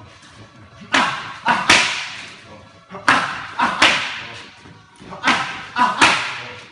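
Punches landing on boxing focus mitts: three quick combinations of three strikes each, about two seconds apart, each strike echoing and fading away.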